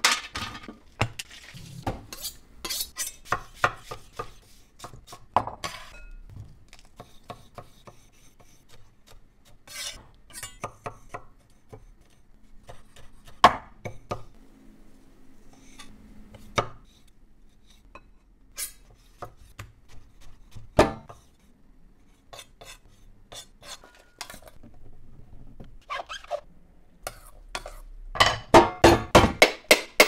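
Knife chopping fruit into small dice on a wooden cutting board, with clinks of metal bowls and utensils. Near the end, a cleaver strikes a whole coconut in quick succession, about five blows a second.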